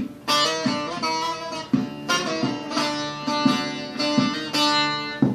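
Plucked string instrument playing an instrumental break between sung verses of a Turkish folk song, with sharply struck notes in a steady rhythm.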